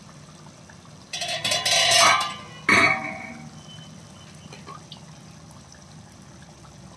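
Thick tomato prawn curry bubbling as it simmers in a kadai while the masala cooks down. There is a spell of louder bubbling and splashing about a second in, and a sharp plop just before three seconds.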